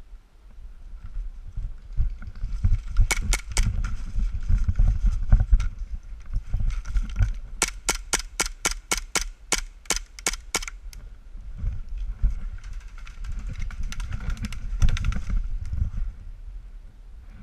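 Airsoft gun shots: a few sharp cracks about three seconds in, then a quick run of about fourteen shots at roughly four a second. A low rumble runs under them.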